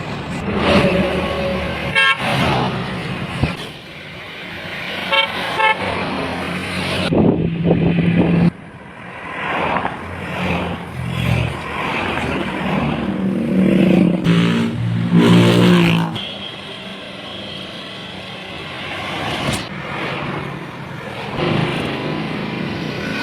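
Vehicle horns sounded by passing drivers: several honks over road traffic, including a quick run of short toots about two-thirds of the way through.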